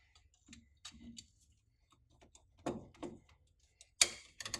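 Scattered light clicks and taps of hand tools at work, with one sharp knock near the end.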